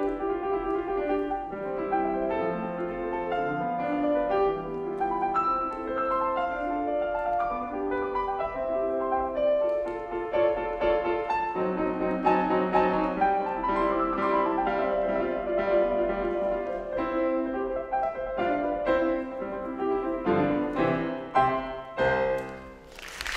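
Steinway grand piano played solo, a classical piece with running melodic lines over lower notes, closing with several loud chords. Applause breaks out right at the very end.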